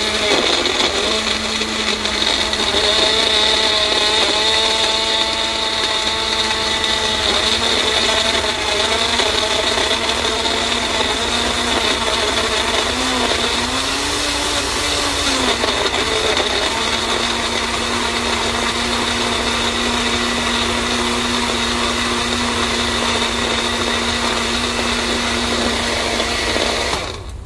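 Magic Bullet blender's motor running steadily while it crushes frozen mixed fruit. Its pitch wavers briefly about halfway through, steadies again, and the motor cuts off suddenly near the end.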